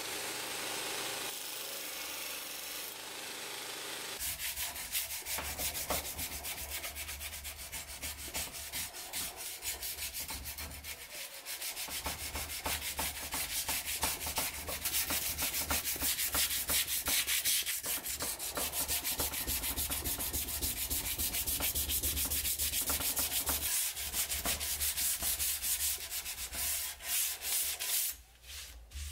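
A belt grinder running briefly. About four seconds in, it gives way to fast back-and-forth hand sanding of a steel knife blade with abrasive paper wrapped around a file, a dense scraping rhythm that breaks off near the end.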